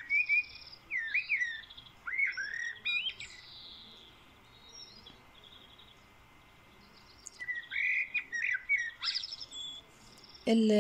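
A small bird chirping and twittering in quick, warbling bursts, a run of calls over the first three seconds or so and another around eight to nine seconds in, with a quiet stretch between.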